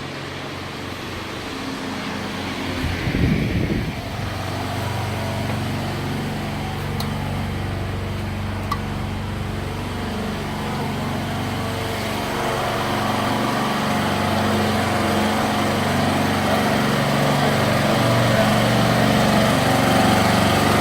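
An engine running steadily, slowly growing louder, with a brief louder rumble about three seconds in.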